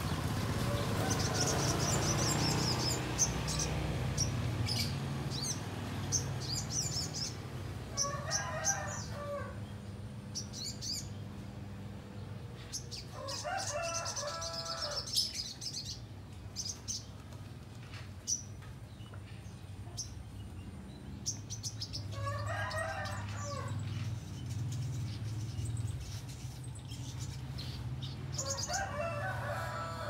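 Caged little spiderhunter (sogok ontong) giving clusters of sharp, high chirps several times. A rooster crows four times in the background, about six seconds apart, over a steady low hum.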